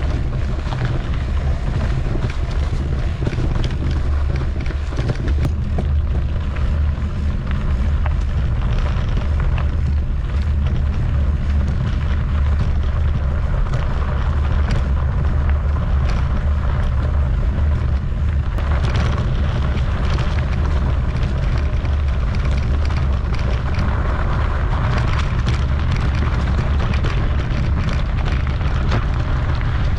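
Steady low wind buffeting on the microphone of a riding mountain bike, with tyres rolling over a rough trail and frequent small rattles and knocks from the bike.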